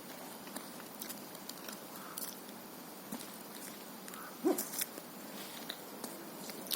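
Light rain pattering, with scattered faint drips and one brief louder sound about four and a half seconds in.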